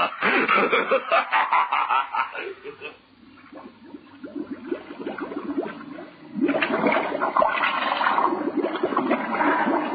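Bubbling, gurgling water sound effect standing for a diver's air bubbles underwater. It dies down about three seconds in and comes back louder about six and a half seconds in.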